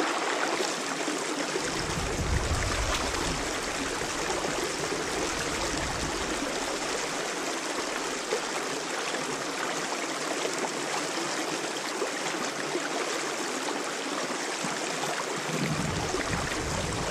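Small stream running over rocks, a steady rush of water. A low rumble comes in about two seconds in and again near the end.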